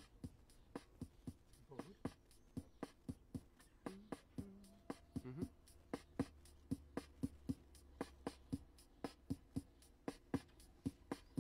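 Steady ticking beat of sharp clicks, about three to four a second, with a few short faint notes about four to five seconds in: the opening beat of a song on a toy organ, before the chords come in.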